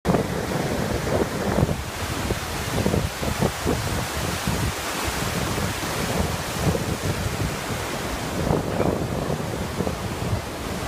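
Ocean surf washing and breaking continuously on a sandy beach, with gusty wind buffeting the microphone.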